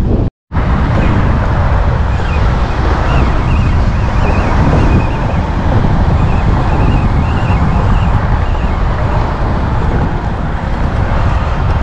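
Wind buffeting the microphone: a loud, steady rumble, broken by a brief silent gap just after the start.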